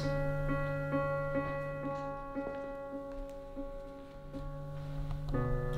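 Background music: slow, held piano notes over a steady low tone, with a new chord coming in near the end.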